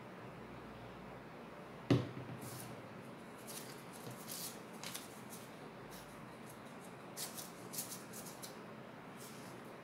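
A single sharp knock on the wooden tabletop about two seconds in, then faint, scattered scratchy rustles of a wooden craft stick spreading glue on paper.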